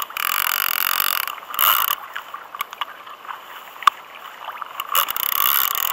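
Fishing reel working as a hooked fish is played on the rod: loud bursts of whirring for the first second or so and again about five seconds in, with scattered clicks between.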